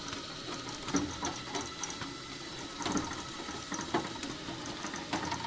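Footsteps crunching and rustling through dry leaves and brushwood, about one step a second, with twigs crackling in between.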